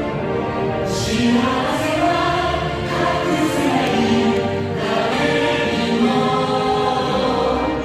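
Music with a choir singing held notes.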